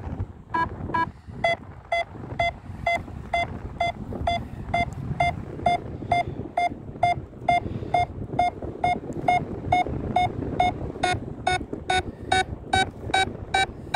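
Paragliding variometer sounding its climb tone: a steady run of short electronic beeps, about three a second, coming a little faster near the end, the sign that the glider is climbing in a thermal. Faint wind noise underneath.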